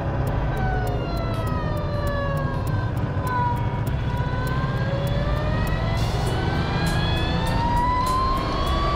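Electric motorcycle's motor whining over wind and road rumble. The whine falls in pitch as the bike slows for a turn, then rises smoothly with no gear changes as it accelerates away.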